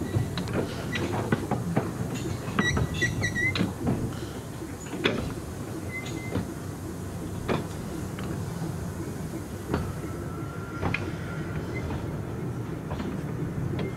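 Narrow-gauge train running along the track: a steady low rumble with irregular clicks and knocks, and short high squeals now and then, with a longer thin one near the end.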